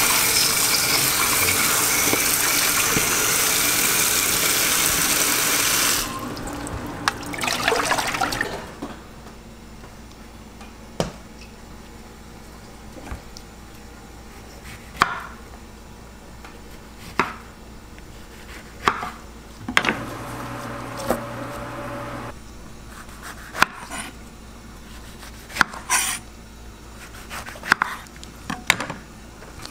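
Water spraying hard from a kitchen sink's spray tap onto oranges in a metal colander, cutting off after about six seconds. After a brief splashing, a knife cuts oranges on a wooden cutting board, with sharp knocks every second or two.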